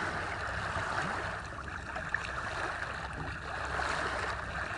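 Water rushing and hissing steadily along a moving sailing yacht's hull, with a low steady hum beneath it.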